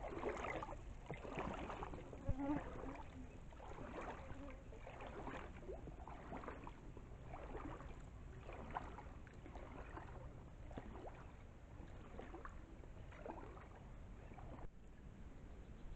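River water lapping in small, soft splashes about once a second, slowly growing fainter.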